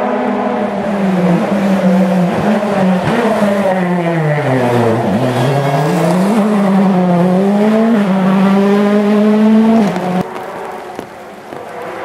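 A World Rally Car's 1.6-litre turbocharged four-cylinder engine running at high revs, which fall sharply as it slows and then climb again through quick upshifts as it accelerates away. The sound stops abruptly near the end.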